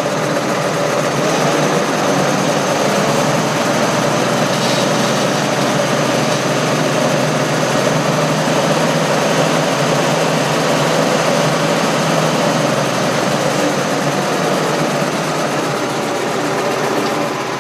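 New Holland T7.200 tractor running with its PTO driving a Kuhn HR 3002 three-metre power harrow, the tine rotors spinning just clear of the ground: a steady mechanical drone of engine and harrow drive, dropping a little in level near the end.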